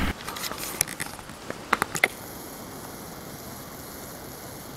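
A few short, sharp clicks in the first two seconds, then a faint steady hiss.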